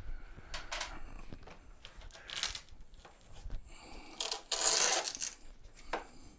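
Short rustles, scrapes and clatters as the folding scooter's plastic parts and rubber floor mat are handled, the longest and loudest about four and a half seconds in.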